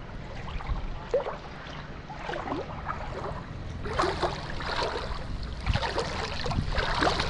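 A boat engine running steadily in the background, with water lapping and wind noise that grow louder from about halfway through.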